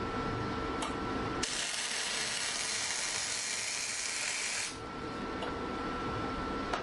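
MIG welder arc crackling and hissing in one burst of about three seconds, starting about a second and a half in, between stretches of a steady electrical hum.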